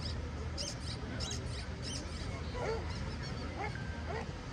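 Dogs whining and yipping, short pitched calls, with a quick run of high chirps in the first two seconds.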